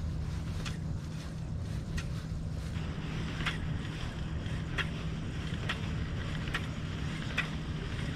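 Kayak on calm water with a steady low rumble underneath. From about three seconds in, faint sharp ticks come roughly once a second.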